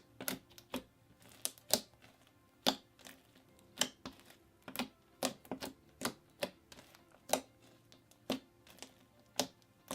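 Slime being squished and pressed by hand, giving irregular sharp clicks and pops of trapped air, about one or two a second.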